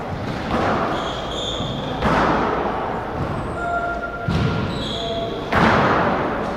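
Squash rally: the ball struck hard by rackets and hitting the court walls about every one and a half seconds, each hit ringing on in the hall, with short squeaks of shoes on the wooden floor between shots. The loudest hit comes near the end.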